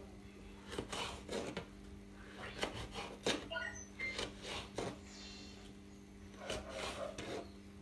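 Scattered knocks and rubbing of objects being handled in a kitchen, over a steady low electrical hum.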